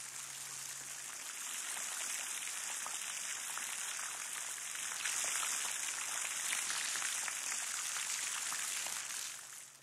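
Heavy rain pouring down on a paved road, a steady hiss that fades out near the end.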